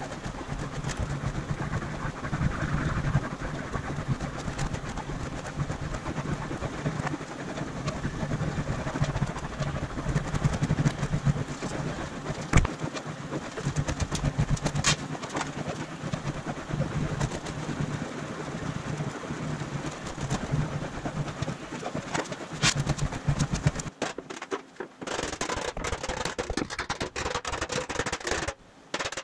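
A shop machine runs with a steady low hum, overlaid with noise and scattered sharp clicks and knocks. About 24 seconds in the hum stops and choppy, intermittent rubbing-like sounds follow.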